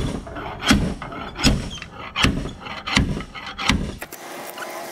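Steel dent-pulling bar hooked onto the edge of a truck's hood, knocking about six times at an even pace, roughly one pull every three-quarters of a second, as a crease in the hood is worked out.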